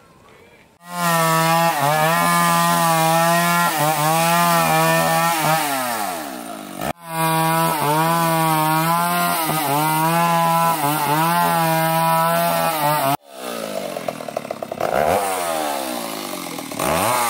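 Two-stroke chainsaw running at high revs while cutting timber into planks, its pitch dipping and recovering as the chain bites. After two abrupt cuts in the sound, about thirteen seconds in, the saw is revved up and down.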